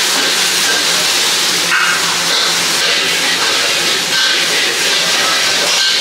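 Noodles and beef sizzling in a carbon-steel wok over a high-flame gas wok burner: a loud, steady hiss.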